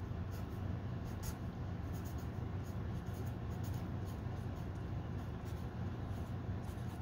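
Felt-tip marker writing on paper: faint short strokes as letters are drawn, over a steady low hum.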